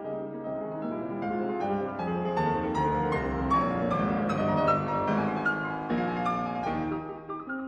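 Background solo piano music, one note following another in a steady flowing line.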